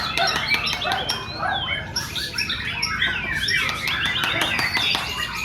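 Several murai batu (white-rumped shamas) singing at once, a dense, unbroken mix of overlapping whistles, trills and sharp clicking notes from birds singing hard.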